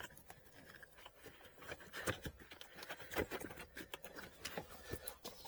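A Tesla Model 3 cabin air filter being worked out of its housing behind the passenger footwell panel: irregular scraping, rustling and small clicks as it slides out.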